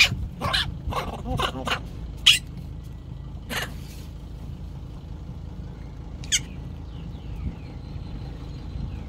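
A series of short, high-pitched squeaks and chirps, about seven close together in the first four seconds and one more about six seconds in, over a steady low rumble.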